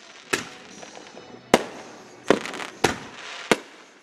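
Aerial fireworks bursting overhead: five sharp bangs in about three seconds, each trailing off into echo.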